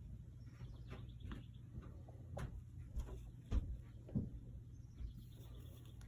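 A few faint, sharp taps and clicks from handling tools and glass during stained-glass soldering work, over a steady low hum.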